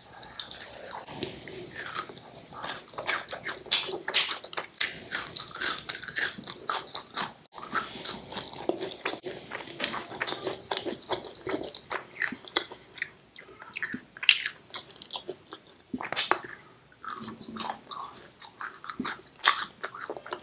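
A person biting and chewing imarti, a fried, syrup-soaked Indian sweet, with many short irregular clicks and crackles of the mouth and food.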